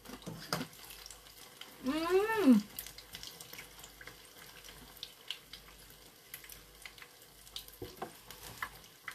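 Faint steady sizzle of battered sweet potato deep-frying in hot oil, with a few small clicks. About two seconds in there is one short voiced hum whose pitch rises and then falls.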